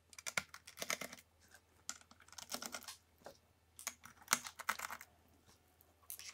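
Small plastic and metal clicks, taps and scrapes of a laptop's heat-pipe cooler being lifted off the motherboard and handled, in three short spells, with one sharper knock at the very end.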